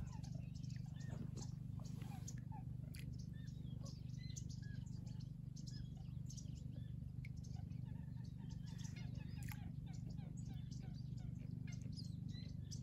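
Many small birds chirping and calling, short rising and falling notes coming thick and fast, over a steady low background rumble.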